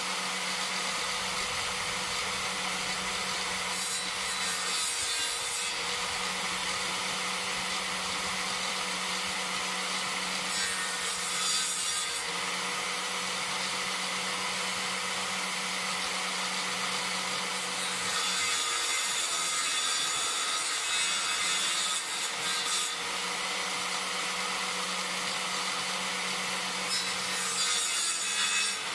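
Electric circular saw running steadily while a birch pole is pushed along its blade to trim off the knots. Four times the blade bites into the wood with a louder, higher cutting noise, the longest lasting about five seconds, and the motor's note sags under the load.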